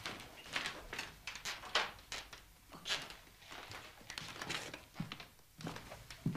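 Irregular soft footsteps, knocks and rustles of someone moving about a small room, with a duller low thump near the end.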